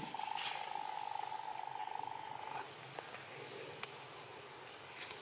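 Outdoor ambience: a steady buzzing insect trill that stops about two and a half seconds in, two short high chirps from a bird, and a few faint clicks.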